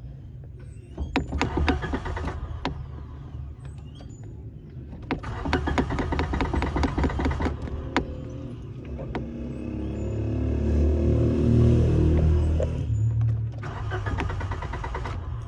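Suzuki Alto's starter motor cranking the engine in repeated short attempts, the engine turning over without catching. A longer, louder stretch of uneven running noise comes in the middle.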